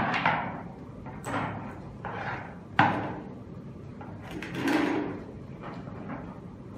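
Plastic knocks and rattling from handling an electric skateboard's ESC case and wiring on the wooden deck. There are a few sharp knocks, the loudest nearly three seconds in, and a softer rustle of parts being moved about a second later.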